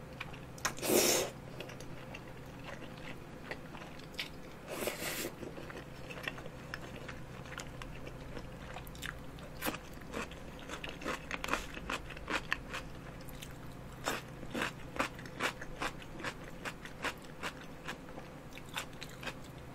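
Close-miked eating sounds: a loud wet slurp of long, chewy tteokbokki rice-cake strands about a second in and a shorter one near five seconds, then chewing with many quick, wet mouth clicks.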